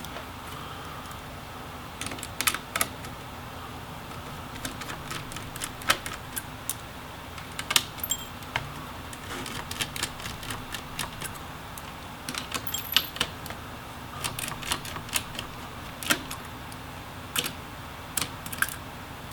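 Irregular small metallic clicks and clinks of a precision screwdriver and small tools working the screws of a laptop's fans and heat sink, coming in scattered clusters.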